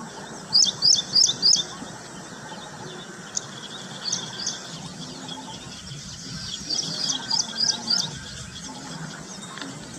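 Small bird chirping: short, sharp high notes in quick runs of four or five, once about a second in, a pair near the middle, and another run around three-quarters of the way through, over a steady background hiss.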